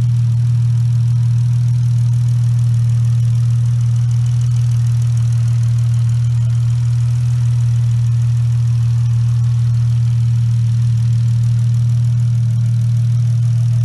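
Chrysler 300's 3.6-litre Pentistar V6 idling steadily with a freshly fitted aftermarket cold air intake, a constant low drone.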